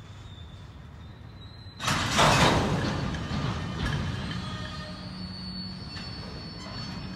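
Freight train rolling past: a low steady rumble, then about two seconds in a sudden loud rush of noise that eases off slowly, with thin squealing tones from the wheels on the rails.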